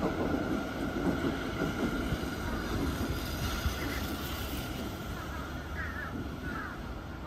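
Sendai Subway Tozai Line 2000 series train running away on elevated track, the rumble of its wheels on the rails slowly fading as it recedes. A few faint chirps come near the end.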